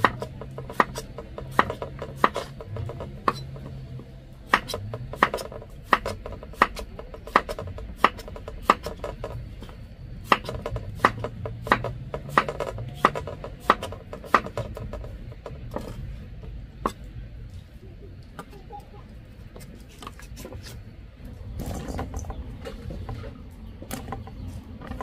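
Knife chopping food on a cutting board in a steady rhythm, about one to two chops a second, with the chops thinning out and stopping about two-thirds of the way through.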